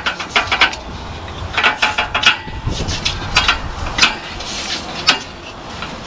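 Irregular sharp knocks and clinks of hand tools striking brickwork, some in quick clusters.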